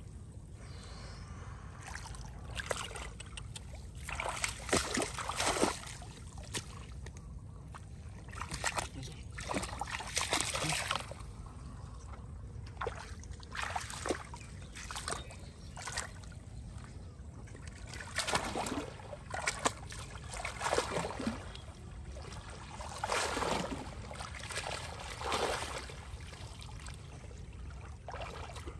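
Shallow muddy water splashing and sloshing as a person wades and works a woven basket through it, in irregular bursts every second or two, over a steady low rumble.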